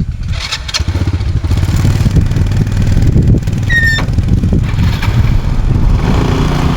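Motorcycle engine running steadily as the bike is ridden, picking up right at the start. A brief high squeak comes about four seconds in.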